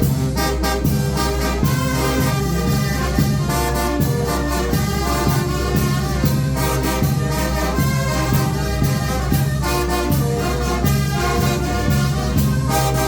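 Mexican banda de viento (village brass band) playing: trumpets and trombones carrying the tune over percussion keeping a steady beat.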